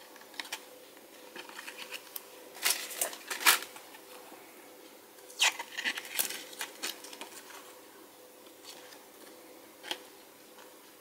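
Paper and thin card being handled: pages of a small printed booklet leafed through, then a glossy card sleeve flexed and turned in the hands. Irregular crisp rustles and snaps, loudest in a cluster about three seconds in and again around six seconds, then sparser.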